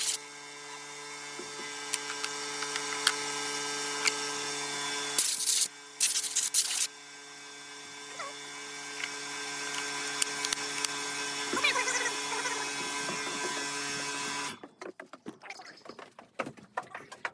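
A small electric motor hums steadily and slowly grows louder. Two short, loud hissing blasts of air come about five and six seconds in. The motor stops about fourteen seconds in, and light irregular clattering follows.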